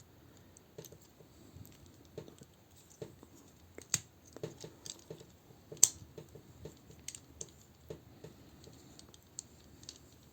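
Hard plastic parts of a transforming robot toy clicking and tapping as the figure is handled, with two sharper clicks, one about four seconds in and one near six seconds.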